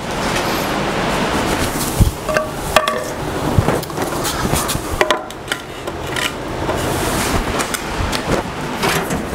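Handling noises: a few sharp knocks and short metallic clinks, most of them about two to three seconds in and one more near the middle, over a steady hiss.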